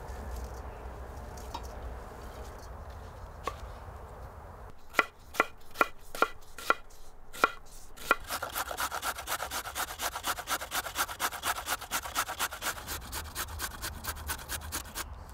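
Food-prep sounds in sequence: a soft steady rustle of gloved hands mixing a raw meat-and-rice filling in a steel bowl, then about seven sharp knocks of a knife slicing an onion on a wooden cutting board, then a carrot rubbed fast on a stainless steel box grater, even scraping strokes about five a second until near the end.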